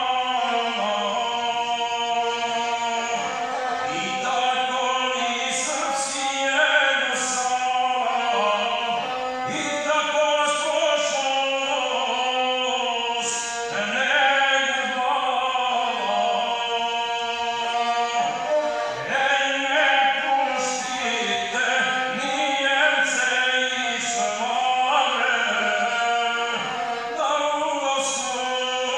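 A man singing a Serbian epic poem to his own gusle, the bowed single-string fiddle sounding without a break beneath his voice.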